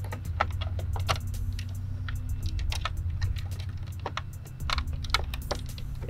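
Light plastic clicks and rattles as an LED sequential turn signal unit is worked and slid back into a truck's side-mirror housing, over a steady low hum.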